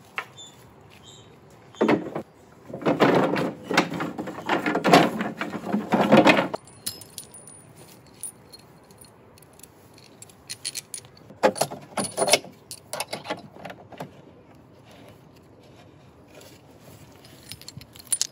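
Wooden slats of a slatted raft deck clattering and knocking against each other and the hull frame as the deck is laid down, then a few lighter clinks and knocks about ten seconds in.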